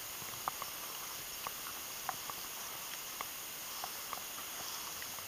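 Footsteps through dry field stubble: soft, irregular crunches about once or twice a second, over a steady hiss.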